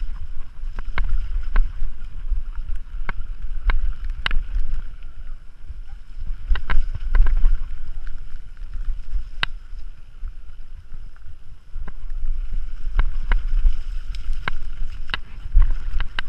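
Mountain bike descending a rocky dirt trail, heard from a bike-mounted camera: wind buffeting the microphone with a steady low rumble, and frequent sharp irregular clicks and clatters as the bike rattles over rocks and bumps.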